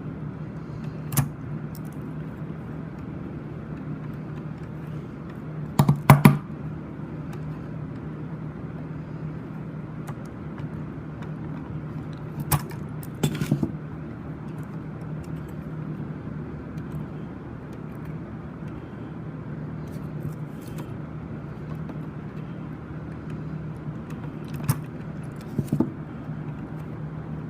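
Small hard objects being handled and rummaged through: scattered clicks and rattles, the loudest cluster about six seconds in, over a steady low hum.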